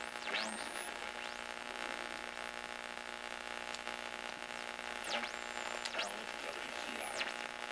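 Mopar model 706 AM push-button radio from a 1960s Dodge truck hissing with static and hum between stations. Several whistles glide up and down, and a steady high whistle holds for about a second near the end.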